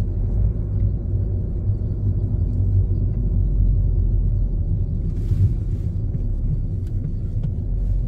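Steady low rumble of a car's engine and tyres, heard from inside the cabin while driving on a paved road.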